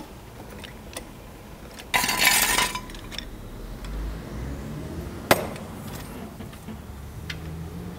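Trolley jack being worked to lower the car off its axle stand: a short noisy rush about two seconds in, light metallic clinks, and one sharp metallic clank a little after five seconds.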